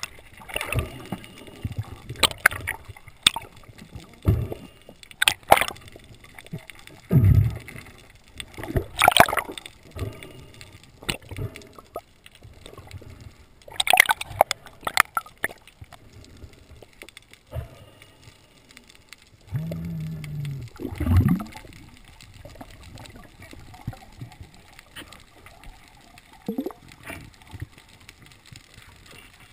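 Underwater sound picked up through a camera housing: water gurgling and sloshing, broken by irregular sharp knocks and clicks that thin out after the halfway point. A brief low tone sounds about two-thirds of the way through.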